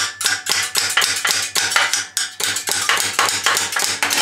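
Rapid hammer blows on a steel hook bar hooked into a motorcycle silencer's perforated baffle tube, sharp metallic clinks about four a second, driving out the rust-jammed baffle.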